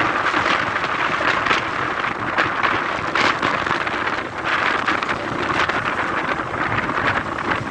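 Wind buffeting the microphone of a moving vehicle, with steady road noise; a constant rushing hiss that flutters in strength.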